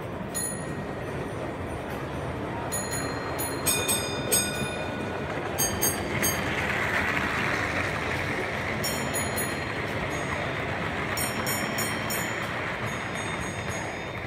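Model train running on the layout out of shot, its sound swelling in the middle and fading, with sharp metallic clicks over the steady background noise of the hall.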